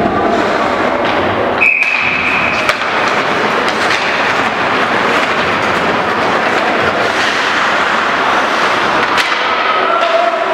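Ice hockey play in an indoor rink: skates scraping the ice, with sharp clacks of sticks and puck over a steady arena din. About two seconds in, a single steady high tone sounds for about a second.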